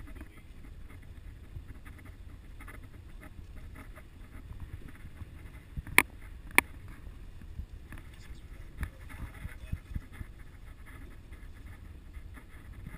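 Vehicle driving over a muddy, rutted dirt road, heard from inside the cab: a steady low rumble of engine and tyres with scattered crackles. There are two sharp knocks about six seconds in, half a second apart.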